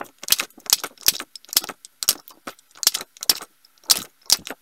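Handheld craft paper punch working through metallic mirror cardstock, punching out tiny flowers: a quick string of sharp plastic-and-metal clicks, two or three a second.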